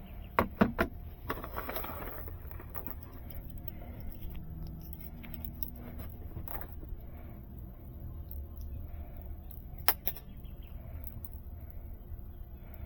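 Metallic clicks and clacks of an E&C Glock 17 airsoft pistol being handled: a quick cluster of sharp clicks and a short rattle in the first two seconds, then a sharp double click about ten seconds in.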